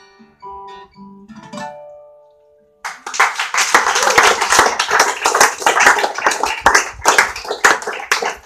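Acoustic guitar plays the closing notes of a song and lets them ring out; about three seconds in, audience applause breaks out and carries on until near the end.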